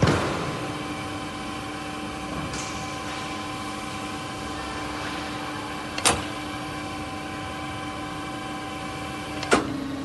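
Aluminium window corner crimping machine running with a steady hum of several fixed tones. Sharp metallic knocks break it three times: at the start, about six seconds in, and near the end, where the hum's pitch drops slightly just after the knock.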